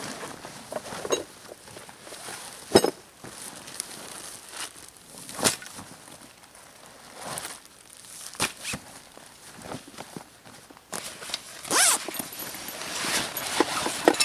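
Canvas packs and gear being rummaged through and unpacked: irregular rustling of heavy cloth with scattered sharp clicks and knocks, the loudest about three seconds in.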